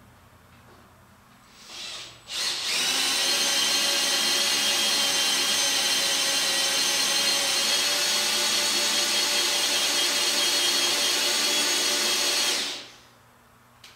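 Handheld electric drill, with a brief spin-up and then a steady high whine for about ten seconds before it stops, driving a half-inch Allen bit to run in the facing head's mounting bolts.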